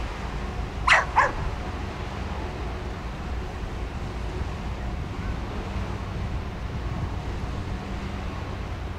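A dog barking twice in quick succession about a second in, over a steady low rumble.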